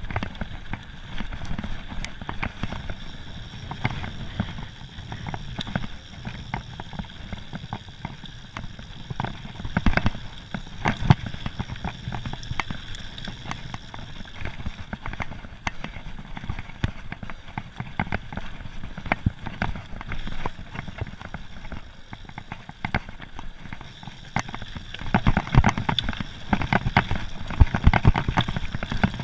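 Mountain bike rattling and clattering over a rough, stony gravel trail on a fast descent, tyres crunching on the loose rock, with a steady rumble of wind on the microphone. The knocks grow louder and come thicker about three-quarters of the way through, on a rougher stretch.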